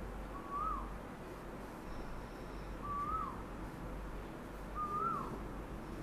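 Asian koel calling: three mellow whistled calls, about two seconds apart, each a held note that lifts slightly and then slides down.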